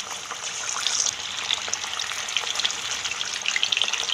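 Batter-coated chicken drumsticks deep-frying in oil heated on a high flame, sizzling with a dense crackle as more pieces are lowered in, the sizzle growing slightly louder.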